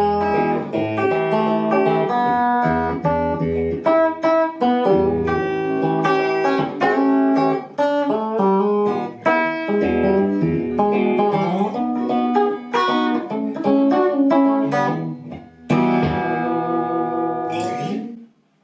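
1980s two-knob Fender Stratocaster electric guitar being played, mixing chords and picked single-note lines, with its tone control turned fully clockwise for more treble. The playing stops and rings out just before the end.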